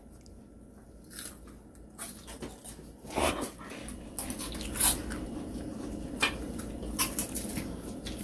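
Children biting into and chewing small crisp piped egg-white cookies: a few sharp crunches a second or so apart over a faint steady background.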